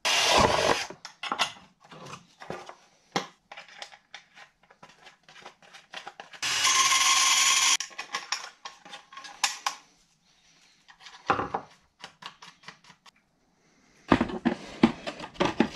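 Workbench handling sounds: a metal bracket, hand tools and a plastic catch tank clinking, knocking and rubbing at a bench vise. There is a loud noisy burst at the very start, and a steady noise lasting about a second and a half about six and a half seconds in.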